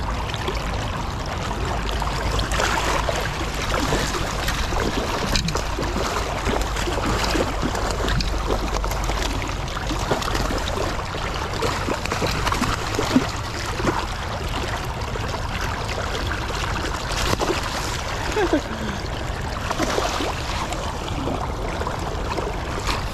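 Steady rush of river water with wind noise on the microphone. A hooked salmon splashes and thrashes at the surface beside the landing net about halfway through.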